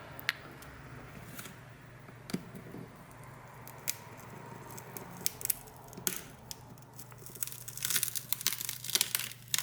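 A tool prying at the shattered glass of a Samsung Galaxy J5 Pro's glued-on screen. Scattered sharp clicks, then a dense crackling near the end as the glass breaks up.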